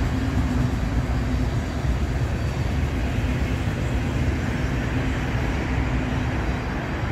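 Passenger train passing, a steady rumble of wheels on the rails with a low hum that fades near the end.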